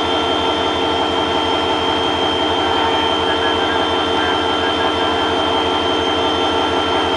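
CC 205 diesel locomotive's engine running steadily with a fast low pulsing, and a steady high whine above it.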